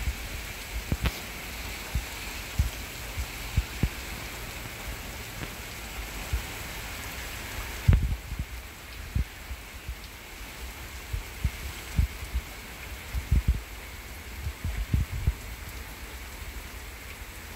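Hard rain falling steadily as a continuous hiss, with irregular dull low thumps scattered throughout.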